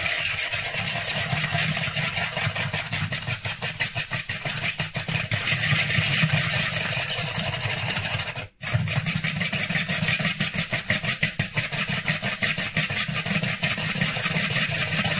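Wire balloon whisk beating butter and sugar in a plastic mixing bowl: rapid, even scraping and clicking strokes of the wires against the bowl as the mixture is worked into a wet paste. The strokes break off for a moment about eight and a half seconds in, then carry on.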